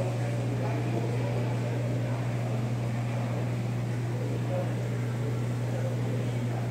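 Aquarium pump humming steadily, a constant low mains hum with a faint wash of water and air noise above it.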